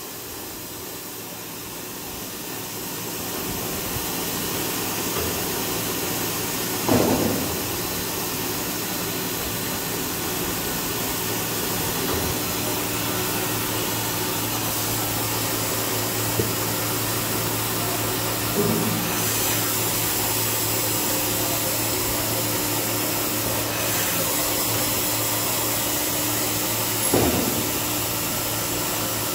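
Toilet tissue band saw cutting machine running: a steady motor and blade whir with a hiss, building up over the first few seconds as it cuts paper logs into rolls. Three brief knocks from the machine come at intervals.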